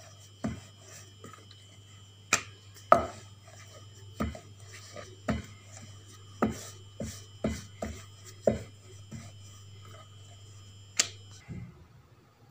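Wooden rolling pin rolling dough out thin on a round wooden board: about a dozen irregular wooden knocks, roughly one a second, over a steady low hum that stops near the end.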